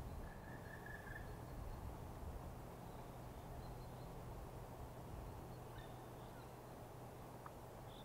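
Faint outdoor ambience: an even low rumble with a steady low hum under it, a short bird call about half a second in, and a few faint high chirps later on.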